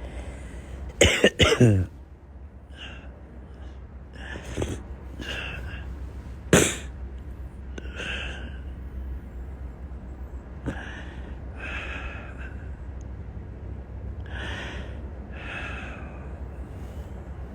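A sick man coughing hard, a short loud fit of coughs about a second in, then heavy breaths every second or two. A single sharp knock about six and a half seconds in, over a steady low hum.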